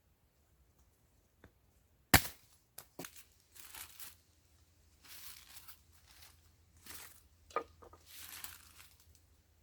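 A sharp knock about two seconds in, followed by several stretches of crinkly rustling, like material being handled or torn.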